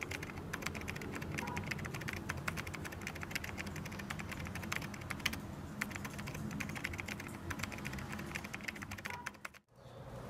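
Fast typing on a MacBook laptop keyboard: a steady stream of key clicks that stops abruptly shortly before the end, leaving a faint room hum.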